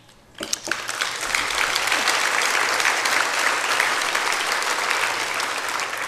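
Audience applauding, starting about half a second in and tailing off near the end.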